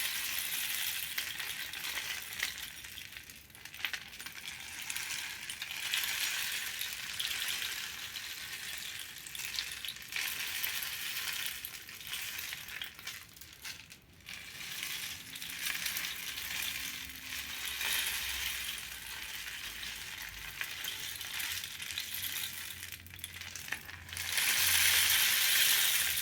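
Homemade rain stick, a foil-roll cardboard tube with loose filling, tipped back and forth so the filling trickles down inside with a steady rain-like patter. The patter swells and fades in several long waves, one for each turn of the tube, and is loudest near the end.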